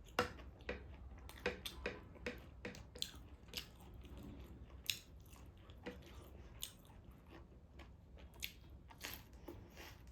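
A person chewing and eating close to the microphone: a string of short, irregular mouth clicks and smacks over a low hum.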